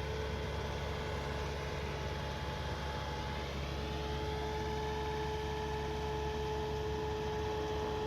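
Bobcat S650 skid steer's 2.4 L four-cylinder turbo diesel running steadily, a low rumble with a steady high whine over it.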